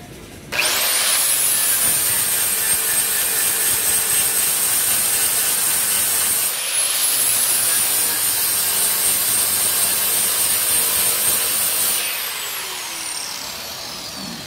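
Angle grinder spinning up to a high whine and grinding down the weld seam of a sheet-metal rocker panel patch. About six seconds in, the pitch briefly dips and climbs back. Near the end it is switched off and winds down with a falling whine.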